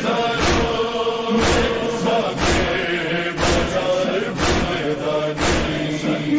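Male voices chanting a Shia mourning lament (noha) in unison over a heavy, steady thump about once a second.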